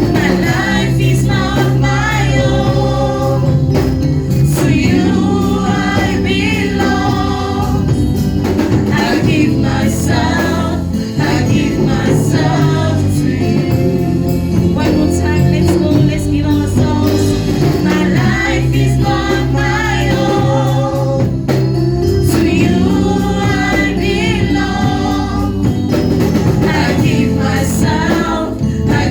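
Gospel worship music: a choir singing over a band with a sustained bass line and steady percussion.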